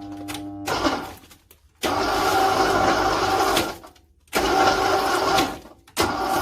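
Crushing machine running with a steady mechanical drone and whine. It is cut into short segments, each fading briefly to silence before the next starts abruptly.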